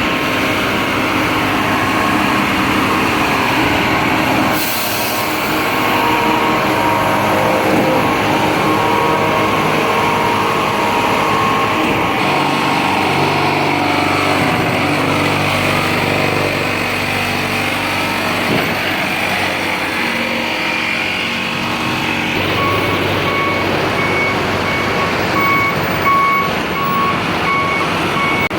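Heavy diesel trucks running steadily, with a short hiss about four seconds in and a backup alarm beeping about once a second in the last six seconds.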